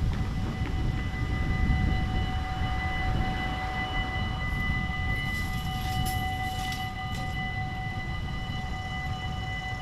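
Dutch level-crossing warning bells start ringing within the first half second and keep ringing steadily as a piercing multi-pitched chime, over a low rumble. They warn that a train is approaching and the barriers are coming down.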